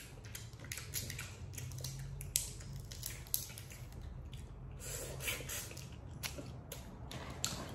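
Boiled crawfish being peeled by hand: irregular sharp cracks and snaps of the shells, with wet squishing and eating sounds, a couple of louder cracks a little over two and three seconds in.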